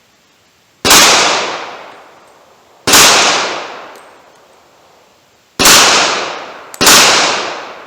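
Four shots from a Glock 41 pistol firing handloaded .45 ACP rounds, spaced about two, three and one seconds apart. Each shot echoes and dies away over about a second and a half.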